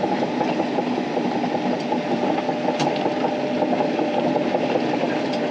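Sany SY265 excavator travelling slowly on its steel tracks, heard from inside the cab: the diesel engine runs steadily under a continuous clatter from the tracks, with a faint steady tone through it and one sharp click about three seconds in.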